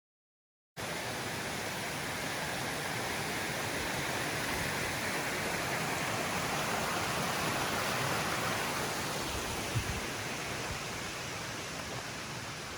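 Steady rushing of running water, cutting in about a second in, with one soft thump about three-quarters of the way through.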